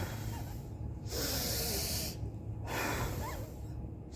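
A woman blowing out hard through her mouth at a tissue as a breathing exercise: two long, hissing breaths, each about a second, with a short pause between.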